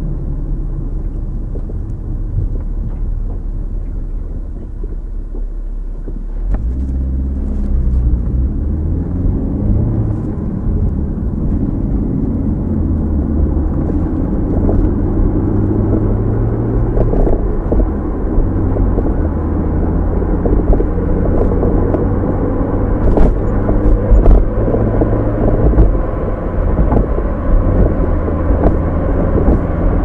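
Car driving: a steady low engine and road rumble that grows louder about six and a half seconds in, after which the low engine note shifts in steps.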